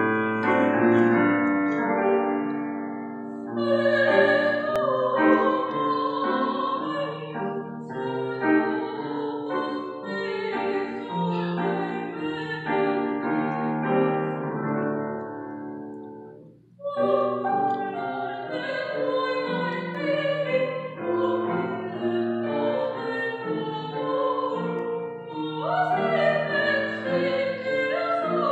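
A woman singing in classical operatic style with vibrato, accompanied by a grand piano. The piano plays alone for the first few seconds before the voice comes in, and the music breaks off briefly just past the middle before both resume.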